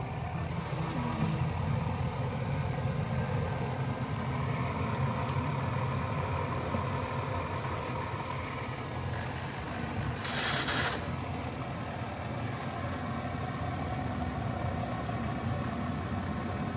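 Remote-control Cat 336D scale excavator working, a steady mechanical hum of its motors and hydraulic pump as it digs and swings its bucket. A brief hissing rush about ten seconds in.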